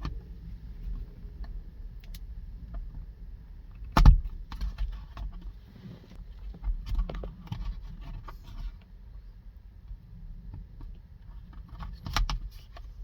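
Car interior plastic trim panel being pried out and handled: a loud sharp click about four seconds in, with scattered smaller clicks and rattles of plastic and wiring, and another pair of clicks near the end.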